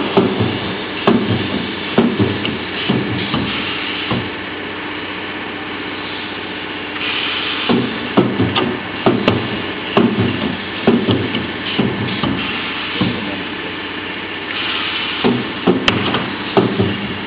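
Spiral fan guard welding machine running over a steady hum, with repeated clunks about every half second to a second as it welds the guard's wires. The clunks stop for a few seconds near the middle, and twice a short hiss comes in just before they start again.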